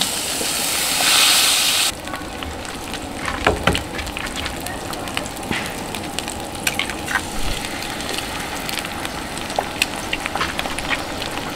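Bacon and eggs frying in a pan on a propane camp stove: a loud sizzle that drops off suddenly about two seconds in, then a quieter steady sizzle with scattered small clicks and taps as eggs are cracked into the pan.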